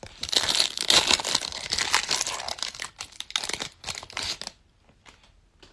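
Foil wrapper of a Panini Select basketball card pack being torn open and crinkled, crackling for about four and a half seconds before dying down to a few light ticks.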